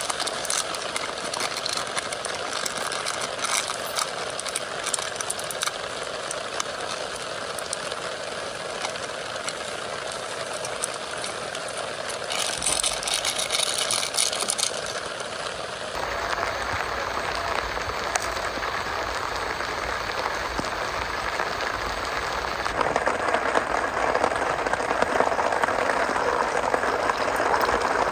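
Heavy rain falling steadily, over the steady hiss of a camping gas stove heating water for coffee. The sound grows louder in the last few seconds.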